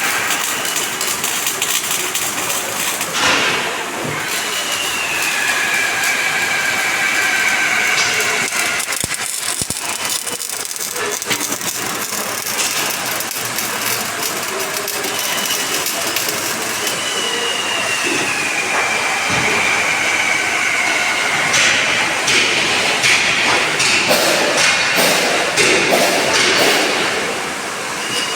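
Metalworking noise: a steady crackling hiss with scattered sharp knocks, and a high whine that twice slides downward in pitch over several seconds.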